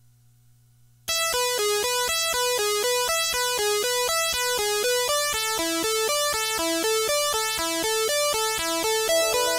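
Teenage Engineering Pocket Operator synthesizers playing a fast, even chiptune-style run of short stepped notes, starting about a second in, through an Echo Blue delay pedal and a Super Skwish compressor pedal. Before it starts only a low hum is heard, and near the end a held chord joins in.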